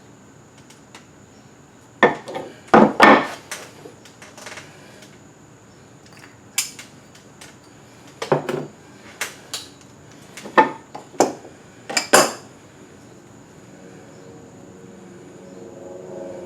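Hard objects, likely metal, clinking and knocking about ten times at irregular intervals, as when tools or pieces are handled and set down, over a faint steady high whine.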